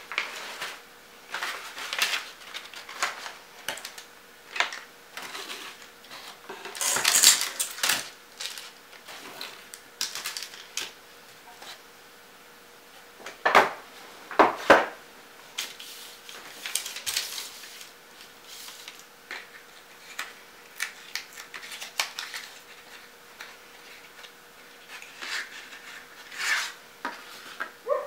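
Unpacking and handling noises: paper and cardboard rustling, with irregular light clicks and knocks of brushes and pencils handled on a hard tabletop, two sharper knocks about halfway through. A faint steady hum runs underneath.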